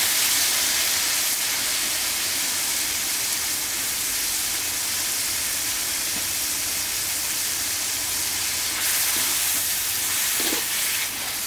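Raw chicken gizzards sizzling in hot oil in a metal wok, a steady frying hiss that is loudest just as they go in. Near the end a metal spatula stirs them, with short scrapes against the pan.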